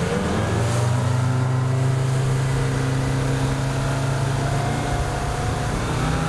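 Suzuki outboard motor pushing the boat along under way. Its pitch rises a little in the first half-second as the throttle goes forward, then holds steady.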